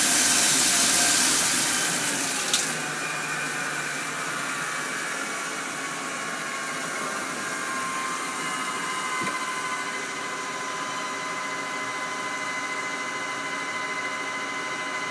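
Mori-Seiki SL-2H CNC lathe machining aluminium. A loud spray of coolant hisses, then cuts off with a click about two and a half seconds in, leaving the steady whine of the running spindle.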